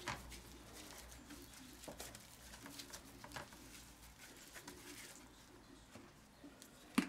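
Faint handling sounds of gloved hands rubbing oil into a raw pork belly and turning it in an enamelled roasting pan, with soft scattered ticks and one sharp click near the end.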